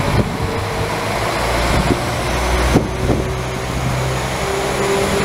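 Two coupled Class 195 diesel multiple units pulling away, engines running under power with a low rumble and a steady whine that grows stronger in the second half. A few sharp clicks come about two and three seconds in.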